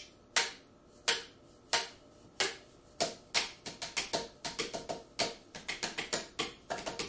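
Cardboard tubes used as drumsticks, striking with hollow, pitched knocks. Four slow, evenly spaced hits come first, then a faster drumming rhythm from about three seconds in.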